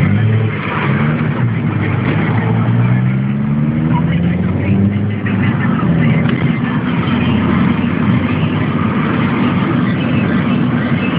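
Car engine and road noise heard from inside the cabin while driving. The engine note climbs as the car accelerates, drops about five seconds in, then holds fairly steady.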